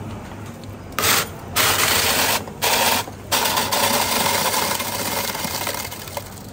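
Electric ice shaver grinding ice in four bursts starting about a second in, the last running about three seconds, as its lever is pressed down onto the ice.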